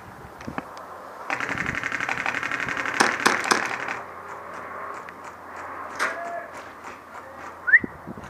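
Electric airsoft gun firing a sustained full-auto burst of about three seconds, a fast even mechanical rattle, with a few sharper cracks near its end; scattered single clicks follow.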